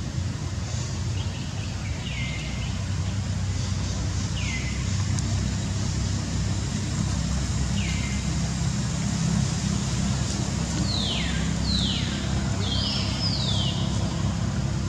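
Short high calls, each sliding downward, come singly every few seconds and then several close together near the end, over a steady low rumble.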